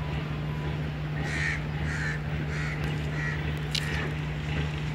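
A crow cawing, a series of about five harsh caws spaced roughly half a second apart, starting about a second in, over a steady low machine hum.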